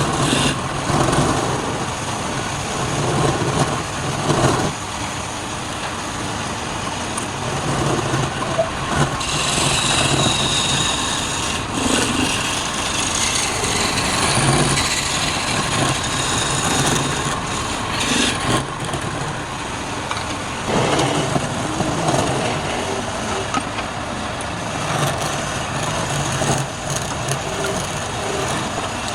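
Wood lathe running steadily, with a turning tool cutting the spinning wood in passes, heard as louder high-pitched scraping around a third of the way in and again shortly after.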